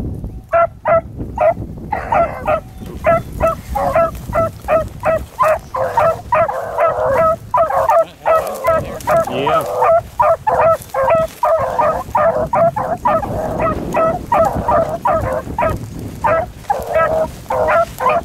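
Beagle hounds baying, a fast run of short, ringing barks, two or three a second, with more than one voice overlapping, as the hounds give tongue on a rabbit's trail.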